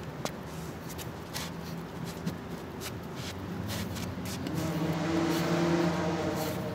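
A motor vehicle passes, its engine hum rising and swelling to a peak about five to six seconds in, then easing off. Scattered light clicks and rustles come before it.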